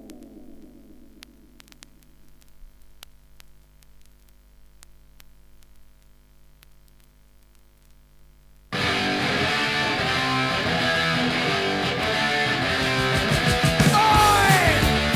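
Vinyl LP playing through the gap between tracks: the previous song's last notes die away, leaving faint surface noise with scattered crackle clicks. About nine seconds in, a loud punk rock track starts abruptly with distorted guitars and drums.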